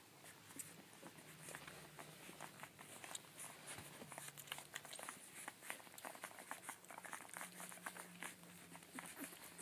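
Faint wet clicking and smacking of 15-day-old collie puppies suckling at their mother, many small clicks a second, with a low hum that comes and goes.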